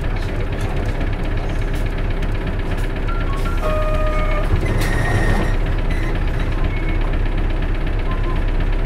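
Diesel engine of a 1996 Isuzu Cubic KC-LV280N city bus running steadily, heard from inside the passenger cabin. A few brief high tones sound about three to four seconds in, and a short hiss follows about five seconds in.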